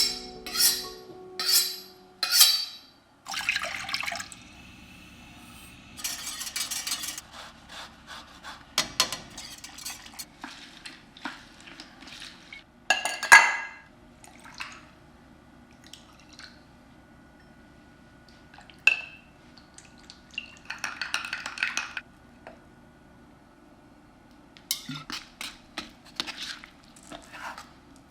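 A cocktail being mixed: glass and ice clinking, liquid poured in short spells, and utensils knocking against glassware, as separate sounds with quiet gaps between, one sharp clink about thirteen seconds in being the loudest.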